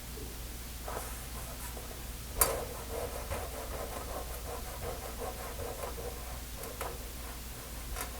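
Handling and rubbing at the face of an old yard thermometer: a sharp click about two and a half seconds in, then a few seconds of scratchy rubbing with a few lighter clicks, over a steady low hum.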